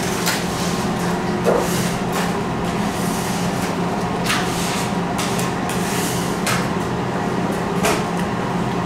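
Restaurant room noise: a steady low hum with occasional short knocks and clatters, about five in all.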